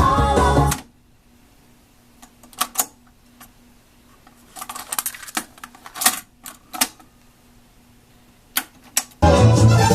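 Music from the tape cuts off shortly after the start, then comes a scattered series of sharp mechanical clicks and clunks from the Sony TC-K81 cassette deck's transport controls and mechanism. The music starts again near the end.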